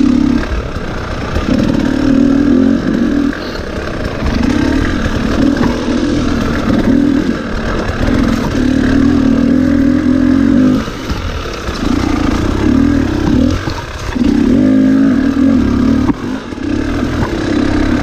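Husqvarna TE300 two-stroke dirt bike engine under repeated bursts of throttle, the revs rising and dropping every second or two as it is ridden over tight trail.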